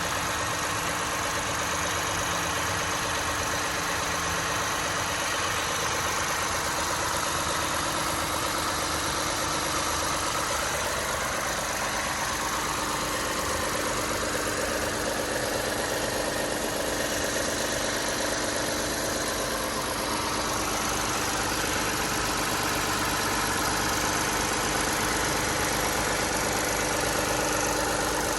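2011 Lexus IS 250's 2.5-litre V6 engine running steadily.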